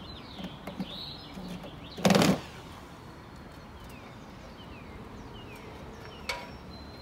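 A cordless drill briefly driving a screw into the wooden fascia board, one short loud burst about two seconds in. There is a single sharp tap near the end, and birds chirp faintly throughout.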